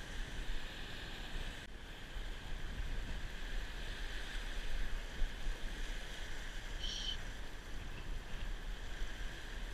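Wind rumbling on the microphone over the steady wash of surf on coastal rocks, with a brief high squeak about seven seconds in.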